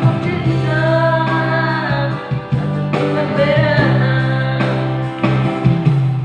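A man singing a ballad in a high register, holding long notes, over instrumental backing.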